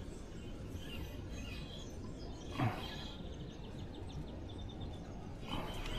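Steady outdoor background noise with faint bird chirps. A short sound slides downward in pitch about two and a half seconds in.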